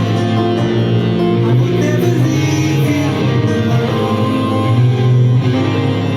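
Guitar music playing steadily, without vocals.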